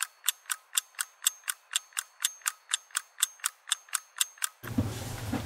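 Sharp, evenly spaced mechanical clicking, about three clicks a second, which stops abruptly near the end and leaves a low room hum.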